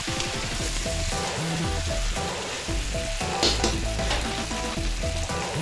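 Lamb pieces with diced peppers and onions sizzling steadily as they fry in a stainless steel pot, briefly louder about three and a half seconds in.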